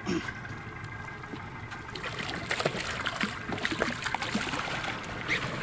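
A hooked giant trevally thrashing at the surface beside the boat hull, water splashing and spattering in a quick irregular patter that picks up about two seconds in.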